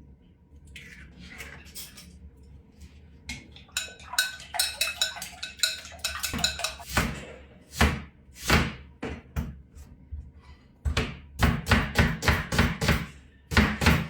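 Eggs being cracked and beaten in a bowl, the utensil clicking and knocking against the bowl in quick runs of strokes, with a fast burst of knocks near the end.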